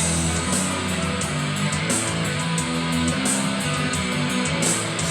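Music with guitar and drums: a rock track with a steady beat and held low notes that change in steps.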